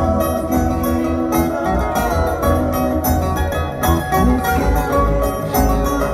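Acoustic guitar played live, with plucked notes ringing over layered sustained tones and a steady deep drone.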